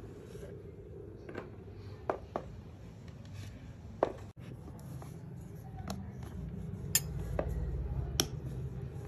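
Scattered light clicks and taps of kitchen utensils and dishes being handled, about eight in all, over a low steady hum.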